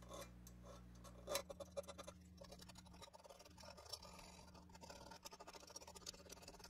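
A small hand file scraping in quick, faint strokes on the edge of a pressed-steel toy car body, with a sharper scrape about a second and a half in.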